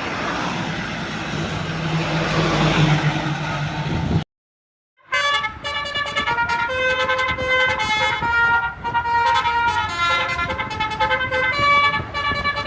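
A vehicle's rushing noise builds for about four seconds and then cuts off. After a short gap, a multi-tone telolet bus horn plays a rapid melody of shifting notes.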